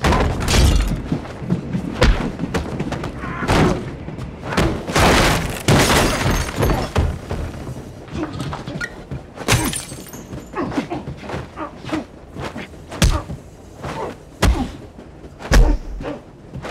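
Hand-to-hand fight sound effects: an irregular run of heavy thuds and crashes as blows land and bodies slam into walls and furniture, with a few longer noisy stretches of smashing.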